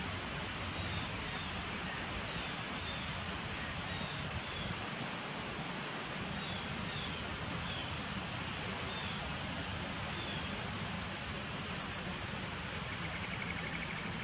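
Steady hum of honeybees massed at the entrance of a nuc hive, with a continuous high-pitched trill running over it and a few faint short chirps.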